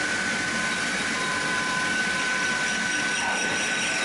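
Metal lathe running with the tool cutting the turning steel workpiece, a steady machining noise with a steady high tone from the cut that fades about three seconds in.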